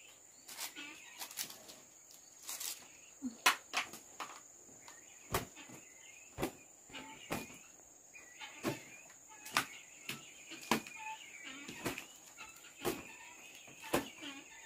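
Crickets chirring steadily in a high, even tone, with irregular sharp knocks and clicks about once a second over it.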